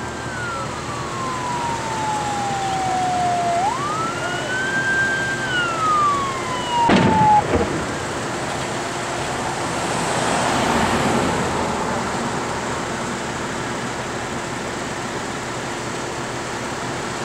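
A fire engine's siren wails, its pitch falling slowly, rising quickly again about four seconds in, then falling once more. About seven seconds in there is a sharp bang from the burning pickup, and a few seconds later a swell of rushing noise from the fire.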